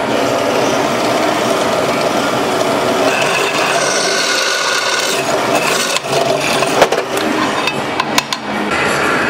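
Steady rasping of a tool working steel bracket stock, with a few sharp clicks and knocks near the end.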